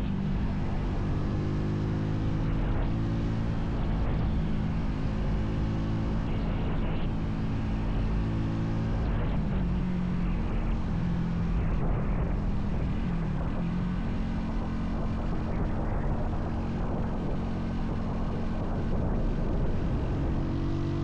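Vitacci XMT 250 motorcycle engine running at a steady cruising speed, with wind and road noise over it. The engine pitch wavers slightly about halfway through.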